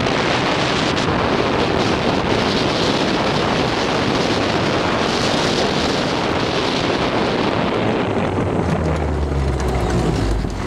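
Loud wind rush on the microphone over an electric golf cart running at about 24 mph, near its top speed. The cart is a Club Car DS fitted with an upgraded motor. Near the end the rushing eases and a low hum comes up.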